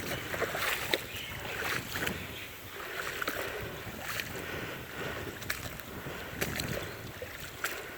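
Water sloshing and splashing in a shallow freshwater stream, with scattered small knocks and clicks.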